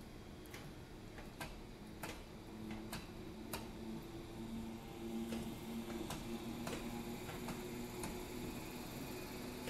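Taiwan Railway EMU100 series train rolling past, its wheels clicking on the track in a run of sharp clicks every half second to a second, over a steady low hum.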